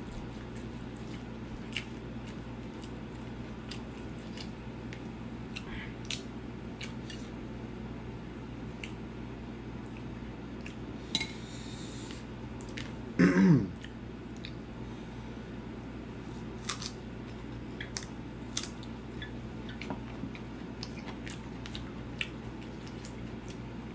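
Someone eating rice by hand from a plate: scattered small mouth clicks and chewing over a steady hum. About halfway through comes one loud, short throat sound that falls in pitch.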